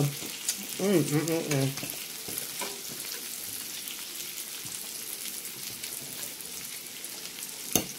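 Shrimp, scallops and sausage sizzling steadily in fat on a hot electric griddle. A person hums briefly about a second in.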